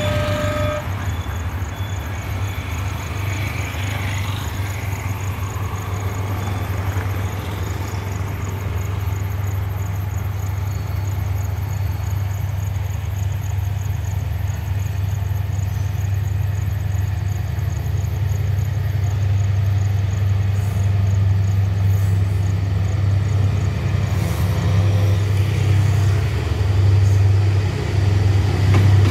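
Class W3 diesel locomotive approaching, its engine a steady low drone that grows slowly louder.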